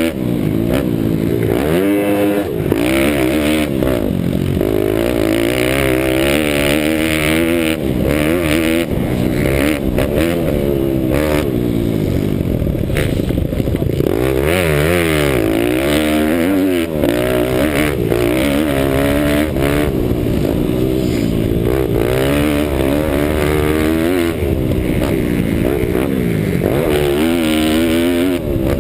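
Pit bike engine revving hard, its pitch climbing and falling back over and over as the rider accelerates, shifts and eases off around a dirt motocross track, heard close up from a helmet-mounted camera.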